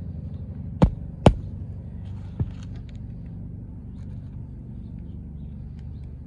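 Hammer striking roofing nails into an asphalt shingle: two sharp strikes about a second in, then a fainter one. A steady low rumble runs underneath.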